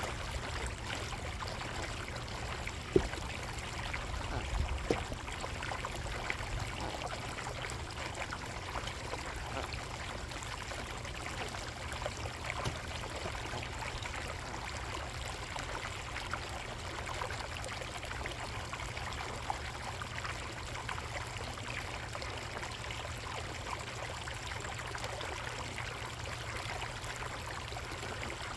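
Water trickling steadily in a koi pond, over a low steady rumble. A sharp knock about three seconds in and a smaller one near five seconds.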